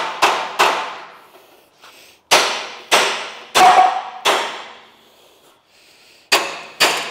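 Hammer blows on the steel chassis of a Toyota BJ40 Land Cruiser, straightening a bent rear section: about nine sharp metallic strikes in three groups, each ringing briefly.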